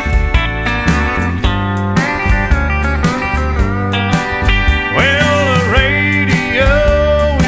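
Country music with a steady beat of drums and bass, and a guitar line that slides in pitch from about five seconds in.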